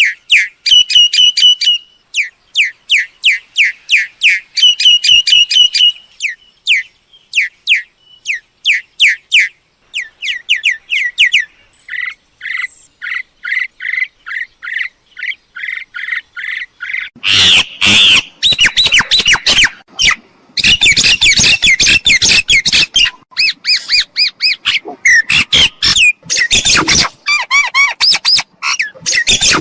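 Myna calls: quick runs of short whistled notes, then, a little past halfway, louder and harsher chattering squawks.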